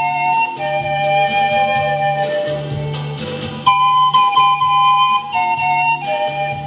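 Two pan flutes playing a slow melody in harmony, each note held with a breathy edge, over a low bass line.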